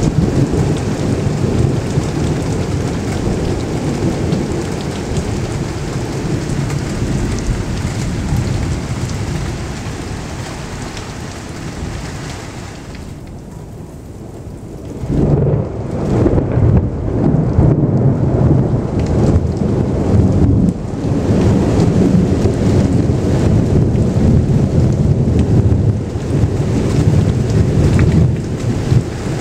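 Thunder rumbling over rain. The first rumble dies away over the first dozen seconds, then a new, louder peal of thunder breaks in suddenly about halfway and rolls on until just before the end.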